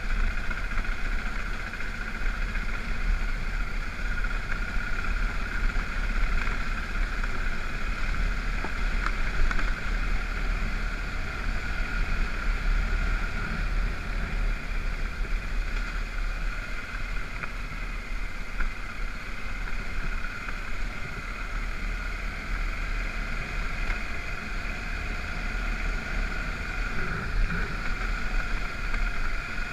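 BMW F650GS motorcycle riding on a gravel road: the engine runs steadily with a constant low rumble, mixed with wind noise on the microphone.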